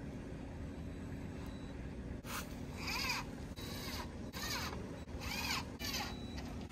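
Cordless drill driving screws into a wooden door frame in about six short trigger pulls, starting about two seconds in. Each motor whine rises and falls in pitch.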